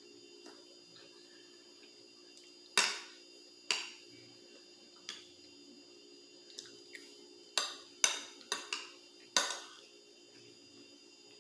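Metal spoon clinking and scraping against a plate, about eight sharp clicks with a short ring, the loudest about three seconds in and a quick run of them near the end.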